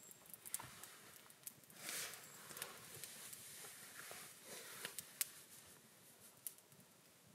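A small wood campfire crackles faintly with scattered sharp pops. There is a soft rustle of movement about two seconds in as someone settles into a seat beside the fire.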